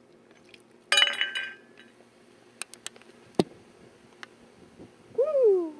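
A small plastic bottle with a half-inserted cork being handled: a short clinking rattle about a second in, a few sharp clicks and a knock, then a short falling squeal near the end.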